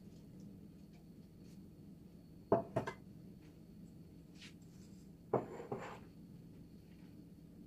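Kitchen handling noise: two short clusters of two or three knocks and clatters, about three seconds apart, over a steady low hum.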